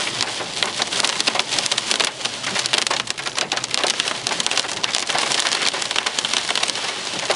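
Hailstones up to about 1.5 cm striking a car's roof and windscreen, heard inside the cabin, over heavy rain. A dense, unbroken clatter of sharp hits.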